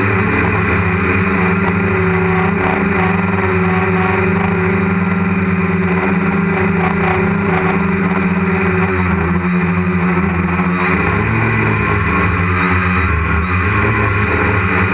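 Quadcopter's electric motors and propellers whirring steadily, heard close up from a camera mounted on the frame. The pitch of the whir shifts about ten seconds in as the throttle changes.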